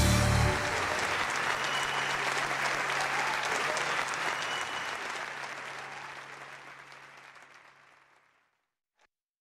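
Concert audience applauding after the band's last note cuts off about half a second in. The applause fades out gradually and is gone by about eight seconds in.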